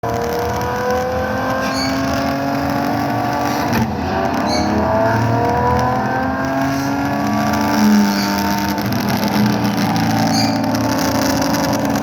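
Racing-car engines revving up through their gears in overlapping rising whines, played back through a JBL 5.1 Surround soundbar.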